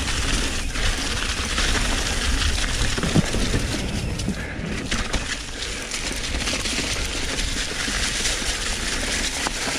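Santa Cruz Bronson full-suspension mountain bike riding a dirt trail covered in loose leaves: continuous tyre and leaf noise with rattling and clicking from the bike, over a steady low rumble.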